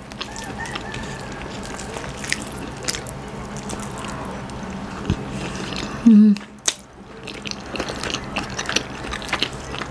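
Close-miked hand-eating of shredded chicken and rice from a banana leaf: fingers picking at the food, then wet chewing with many small mouth clicks. A brief hum from the mouth about six seconds in, with a steady low hum underneath throughout.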